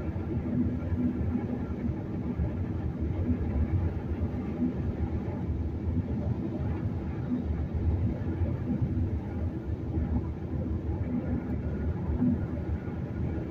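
Steady road noise inside a car's cabin at highway speed: a low rumble of tyres on concrete pavement and the engine running.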